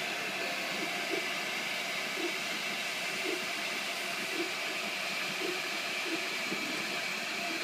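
3D printer printing: a steady hiss with short pitched whirs every half second or so as the print head moves.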